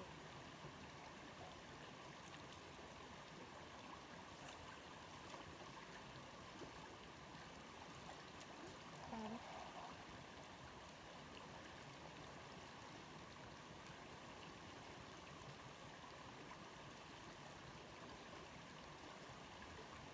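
Faint, steady rushing of a stream, with a short faint sound about nine seconds in.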